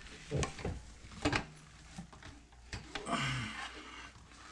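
Parts of a grill stand being handled and fitted together: a few sharp knocks and clicks in the first second and a half, then a short rustle about three seconds in.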